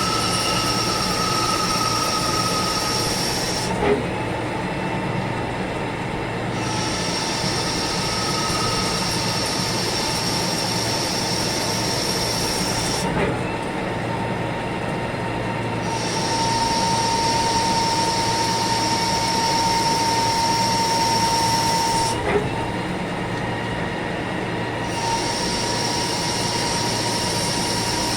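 CNC lathe running through its machining cycle: a steady mechanical noise with a high whine, and a sharp click about every nine seconds. After each click the high whine drops out for a few seconds, then returns.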